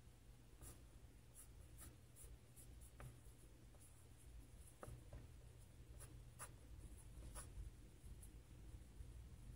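Faint scratching of a colored pencil on sketchbook paper, laying down quick, irregular short strokes, over a low steady hum.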